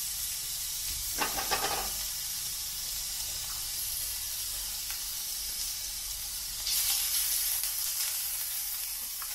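Diced white onion sizzling steadily in hot olive oil in a cast-iron skillet. About two-thirds of the way through the sizzle grows louder and brighter as a wooden spoon stirs the onion around the pan.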